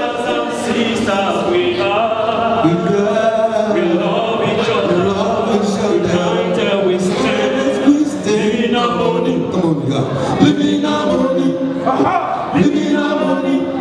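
Several men's voices singing together a cappella into handheld microphones, with no instruments.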